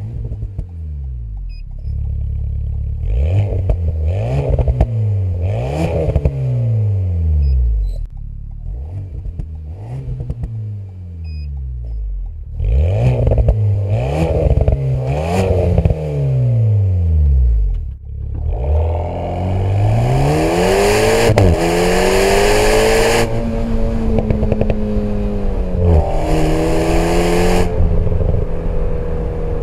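Alpine A110's 1.8-litre turbocharged four-cylinder engine, heard from inside the cabin through a QuickSilver valved sports exhaust. For about the first 18 seconds it is revved in a series of about six short throttle blips, each rising and falling. It then pulls away and accelerates hard, the pitch climbing and dropping sharply at two upshifts.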